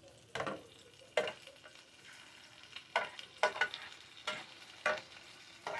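Bacon frying in a three-section frying pan, with a faint steady sizzle. About eight short scraping strokes of a utensil against the pan come at irregular intervals.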